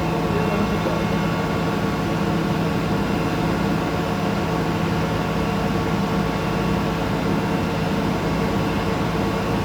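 Hydraulic machine running with a steady, even hum from its motor and pump, holding a constant pitch.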